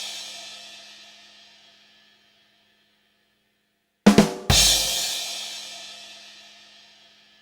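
Comedy drum sting, the 'ba-dum-tss' rimshot. A cymbal is ringing out and fades by about two seconds in. After a silence, about four seconds in, come two quick drum hits and a cymbal crash with a kick, ringing out for about three seconds.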